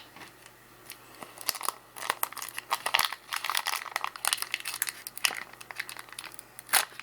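Crinkling and crackling of a trading-card pack wrapper being torn open and handled, growing busier about a second and a half in.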